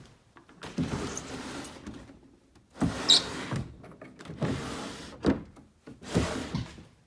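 A door being moved, scraping and creaking in four separate strokes, with a short high squeak about three seconds in.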